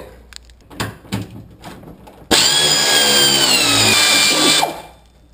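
Pneumatic ratchet on an air hose spinning for about two and a half seconds, starting and stopping abruptly, its pitch sinking slightly as it runs the fuel tank's rear strap bolt loose. A few knocks of tool handling come before it.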